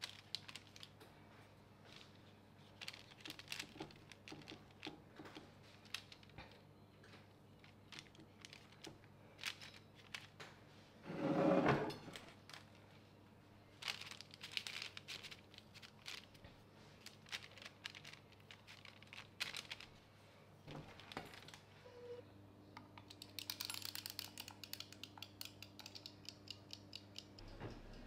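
Handling sounds of a metal spring-release cookie scoop portioning dough onto parchment paper on a baking tray: scraping, paper rustling and small clicks. One louder brief noise comes about midway, and a run of rapid ticks follows near the end, over a low steady hum.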